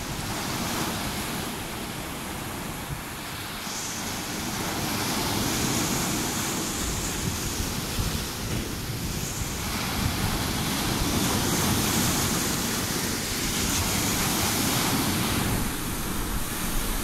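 Waves breaking onto a rocky, pebbly shore: a continuous rush of surf and foam whose hiss rises and falls in long surges as each wave comes in and washes back.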